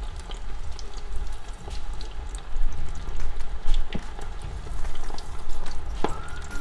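Battered chicken pieces deep-frying in hot oil in a saucepan: a busy bubbling, crackling sizzle as pieces are dropped in. Sharp clicks about four and six seconds in.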